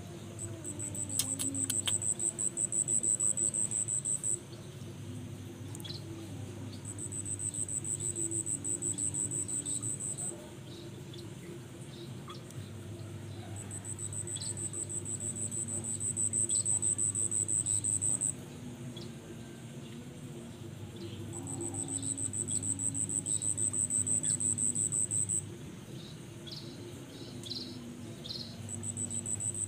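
Insect song: a high, pulsing trill that comes in bouts of a few seconds with short pauses between, five times over, alongside faint short chirps.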